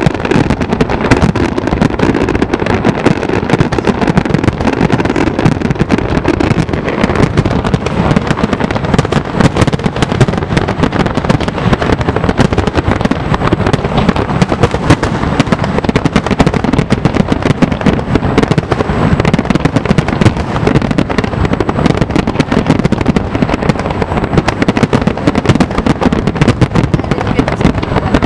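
Fireworks display shells bursting in a loud, dense barrage of bangs, one on top of another without pause.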